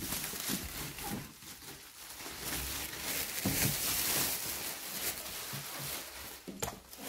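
Thin plastic bag rustling and crinkling in irregular handfuls as it is pulled off a bread maker.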